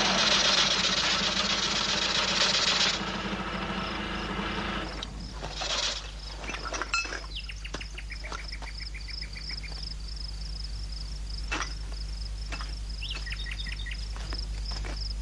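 Outdoor ambience with a high chirp repeating about twice a second, scattered clicks and a steady low hum. A loud hiss-like noise fills the first few seconds and dies away.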